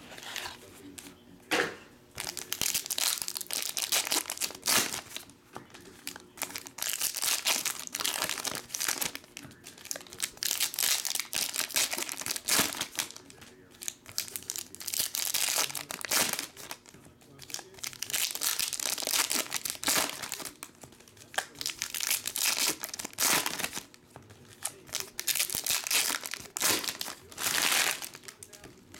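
Foil trading-card packs being torn open and their wrappers crinkled by hand, in repeated bursts of crackling a few seconds long with short pauses between.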